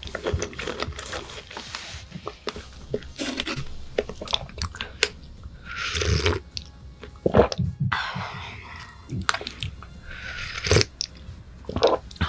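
Close-miked eating sounds: wet chewing clicks and smacks from a mouthful of strawberry tiramisu. From about halfway in come several hissing sips from a mug of hot chocolate.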